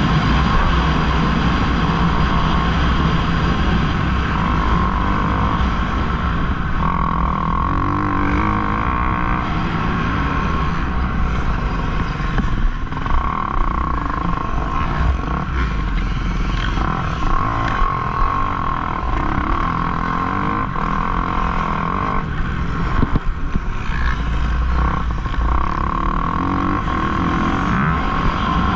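Kawasaki KX250F motocross bike's four-stroke single-cylinder engine running hard, its revs rising and falling repeatedly as the throttle opens and closes.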